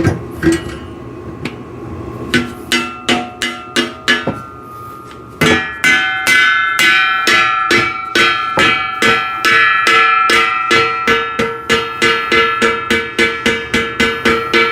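Rubber mallet repeatedly striking the steel tubing of a sissy squat machine frame to drive a tight-fitting piece into place. Each blow sets the hollow steel ringing with a pitched tone. About five seconds in the blows turn louder and steadier, around three a second.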